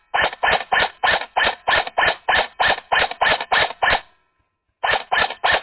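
Airsoft DMR firing a rapid string of single shots, about three or four a second, each a short sharp report with a click at the start. The string breaks off about four seconds in, and after a short pause a few more shots follow.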